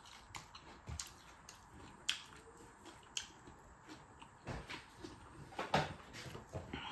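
Close-up eating sounds: chewing and sharp mouth clicks, with fingers working rice on a plate.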